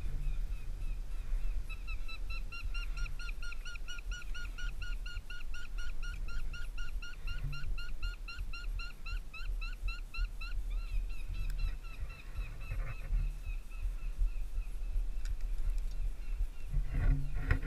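Northern flicker giving its long call: a rapid, even series of short 'wick' notes that runs for about nine seconds and then stops. A low rumble of handling noise runs underneath, and there is a scrape of climbing gear near the end.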